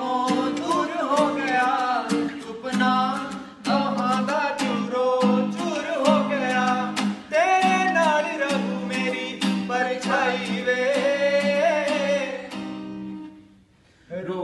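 A man sings a slow song live over a strummed acoustic guitar. Near the end, voice and guitar fade to a brief near-silent pause before the strumming starts again.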